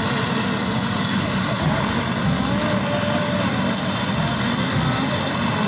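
A turbine helicopter running on the ground after landing. Its engine gives a steady high whine over a low, uneven rotor rumble.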